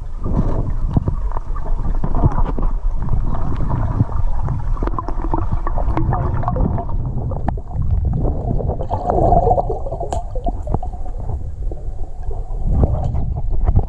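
Underwater sound from a camera held below the surface: muffled rushing and gurgling water with many small clicks and knocks, and a brighter bubbling patch about nine seconds in.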